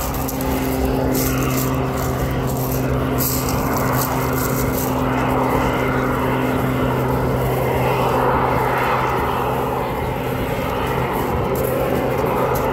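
Engine drone of a display aircraft flying overhead, a steady low hum with a rushing sound that swells and fades as it manoeuvres, growing louder in the second half.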